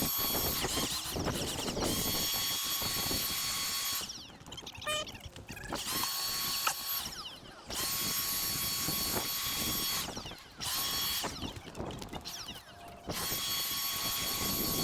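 Cordless leaf blower's electric motor whining at a steady speed, switched off and spun back up several times so that it runs in spells of a few seconds.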